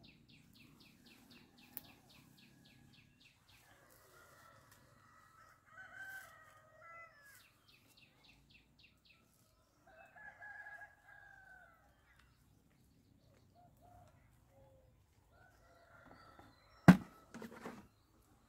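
Roosters crowing: two long crows, the first about four seconds in and the second about ten seconds in. A fast run of high ticks plays at the start, and a single sharp knock near the end is the loudest sound.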